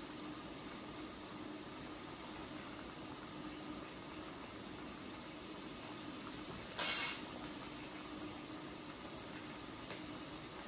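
Broth simmering in an electric hot pot, a steady low bubbling hiss, with one short sharp noise about seven seconds in.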